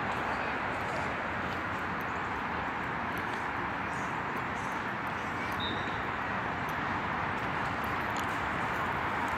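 Steady wash of road traffic noise, even throughout, with a few faint ticks.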